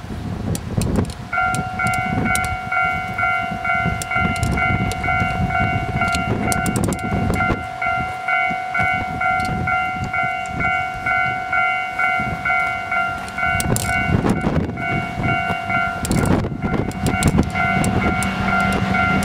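Station train-approach warning alarm sounding a repeating electronic tone, pulsing about three times a second, over the low rumble of a train coming through the tunnel. Near the end a steady low note joins in as the diesel locomotive nears.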